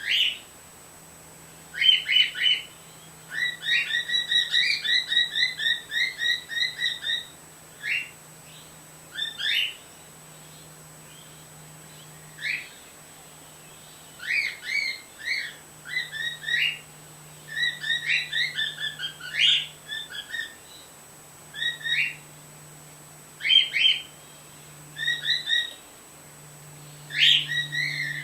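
Cockatiel chirping in quick runs of short, clipped notes, about five a second, broken by pauses of a second or two. A faint steady low hum sits underneath.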